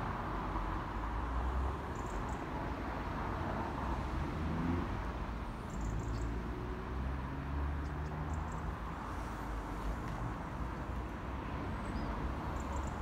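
Class 172 diesel multiple unit's engine running at the station platform, a steady low rumble with a hiss over it.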